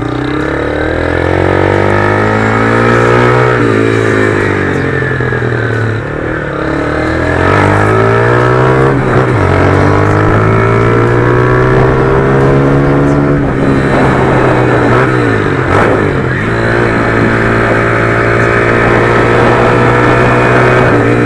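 Honda CG 150 Start's single-cylinder four-stroke engine through an aftermarket Fortuna exhaust, pulling up in pitch and dropping back several times as the rider accelerates and shifts gears. A few short crackles come from the exhaust as the throttle closes.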